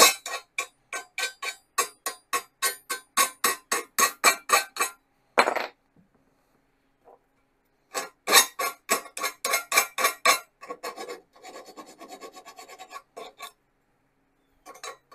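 Hand file rasping back and forth over the freshly cut end of a metal seat bracket, about three strokes a second, taking off the burr left by a cutting wheel. The strokes pause for about two seconds midway, resume, then turn into a quicker, continuous rasping before stopping near the end.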